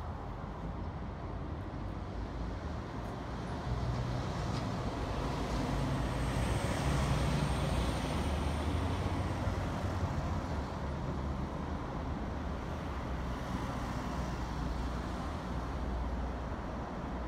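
City street traffic: a steady hum of passing cars, swelling louder about halfway through as a bus goes by.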